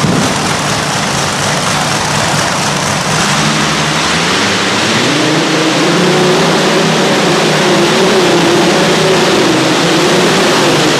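Light Modified pulling tractor's racing engine at full throttle under load, pulling the sled. The note climbs about four seconds in, then holds high and wavering as the run goes on, dropping away near the end.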